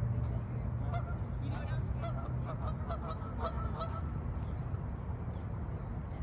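Geese honking, a run of short repeated calls from about a second in until about four seconds in, over a steady low outdoor rumble.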